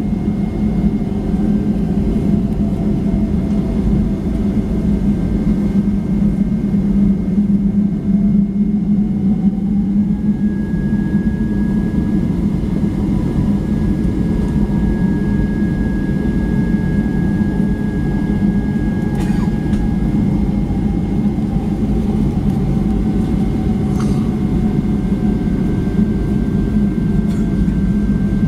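Steady cabin rumble and hum inside a Boeing 757-200 during pushback, with faint whining tones above it: one rises about a third of the way in, a higher one holds for about ten seconds, and another slowly falls away later.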